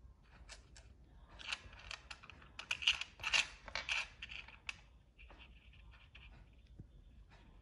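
Felt-tip marker tip tapping and scratching on a clam shell while drawing black spots: a quick run of small clicks and scrapes in the middle, the busiest stretch about three seconds in.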